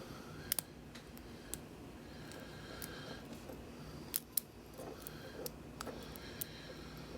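Lock picks working in an ASSA Twin 6000 lock cylinder: a few sharp, scattered metallic clicks, the loudest a pair about half a second in and another pair about four seconds in.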